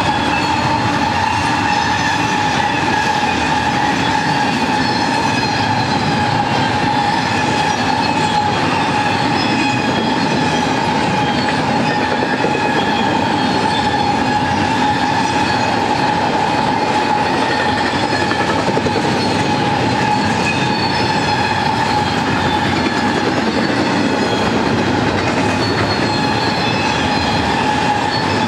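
A BNSF double-stack intermodal container train rolling steadily past: a continuous rumble and clatter of wheels on the rails, with a steady high-pitched squeal over it.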